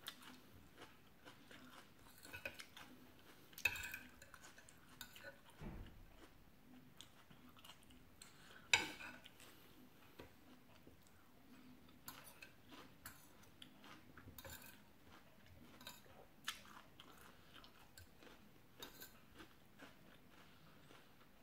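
Metal spoon and fork clinking now and then against a plate, with soft chewing between. The clinks are sparse and faint, the sharpest two about four and nine seconds in.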